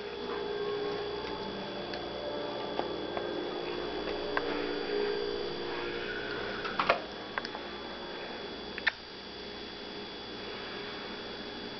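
Steady low hum with a few sharp clicks and taps scattered through it. The loudest click comes about seven seconds in, and another about nine seconds in.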